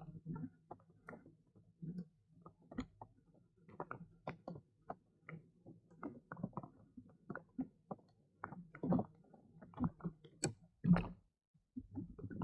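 Small irregular knocks and clicks on a kayak, a few each second, with two louder knocks near the end, over a faint low hum.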